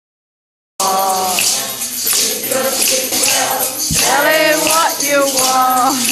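Group of voices singing a devotional satsang song (bhajan) to jingling hand percussion, starting abruptly about a second in.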